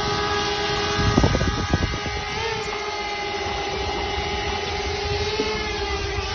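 DJI Spark quadcopter's propellers hum steadily in flight, a whine whose pitch wavers slightly, over a low rumble. A few thumps come about a second in.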